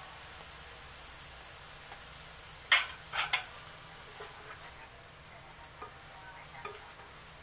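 Spatula stirring shredded chicken in a stainless steel pan over a faint steady sizzle. Three sharp clacks of the spatula against the pan come a little under three seconds in, followed by a few lighter knocks and scrapes.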